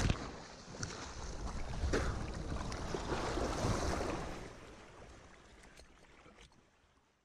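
Sea water splashing and sloshing close around a helmet-mounted camera on a paratrooper floating just after landing in the water. The splashing comes unevenly, louder about two to four seconds in, then fades out near the end.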